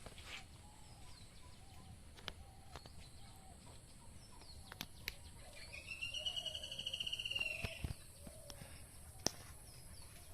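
Hens clucking softly now and then, and about six seconds in a bird gives one rapid trilled call lasting about two seconds, the loudest sound here.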